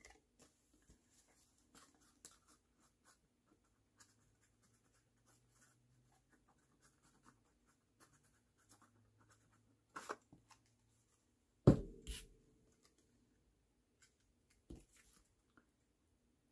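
Cardstock being handled on a desk: faint rustling and paper sliding, with a few short taps and knocks, the loudest about twelve seconds in, followed quickly by a second.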